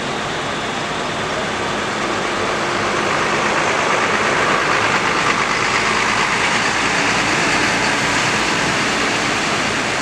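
Large intercity coach bus moving off close by with its engine running, a steady rushing noise that grows louder about four seconds in as the bus passes.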